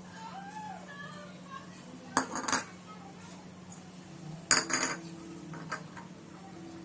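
Dishware clinking as banana slices are tipped and scraped out of a small serving bowl into a large mixing bowl. Two short bursts of clinks come about two seconds in and again about four and a half seconds in, over a steady low hum.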